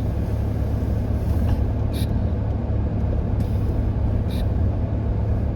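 Steady low rumble of a vehicle driving, engine and tyre noise heard from inside the cabin, with a few brief light clicks.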